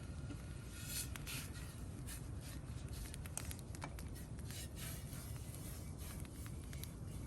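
Campfire crackling: irregular small snaps and pops over a steady hiss.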